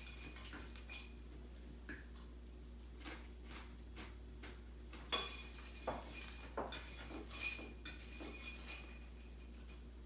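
Dishes and cutlery clinking: scattered light knocks and short ringing clinks, thickest around the middle, over a steady low hum.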